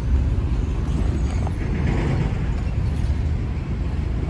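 Steady low outdoor rumble of road traffic and wind on the microphone, with a few faint ticks.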